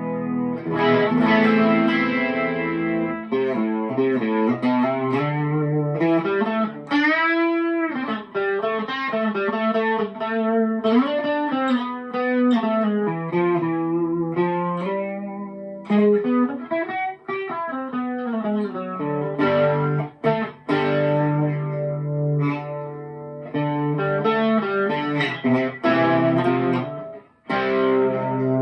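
Electric guitar on its bridge pickup played through a TC Electronic 3rd Dimension chorus pedal on its lightest setting (button 1) plus an overdrive pedal: chords and picked notes with light chorus and overdrive, including a bent note about seven seconds in.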